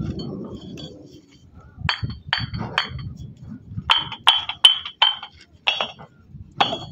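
Fired clay bricks knocked against each other in the hand, giving about nine sharp clinks with a short ring. There are three around two seconds in, a quicker run of four about four seconds in, and two more near the end. A clear ring like this is the sound of a hard, well-fired brick.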